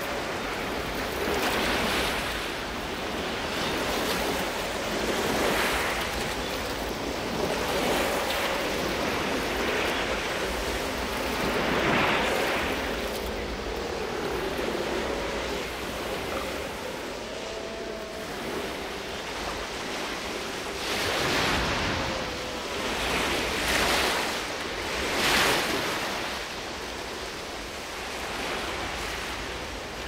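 Ocean surf breaking on a beach, the waves crashing in repeated swells every few seconds, loudest near the end.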